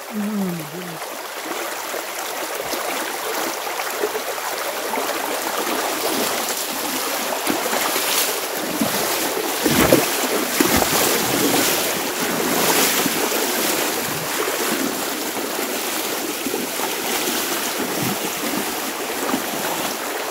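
Fast, rain-swollen creek water rushing steadily around people wading in it, with a few louder surges of noise about eight to thirteen seconds in.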